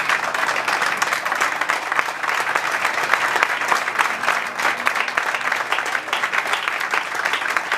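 An audience applauding, many hands clapping together in a dense patter.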